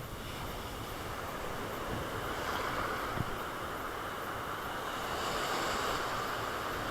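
Sea surf washing onto the beach, with wind on the microphone. The wash swells about two seconds in and again near the end.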